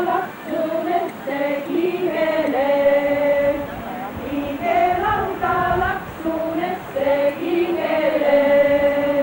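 A group of women singing a traditional Estonian swing song (regilaul) unaccompanied, in unison, the melody moving in short repeated phrases with held notes.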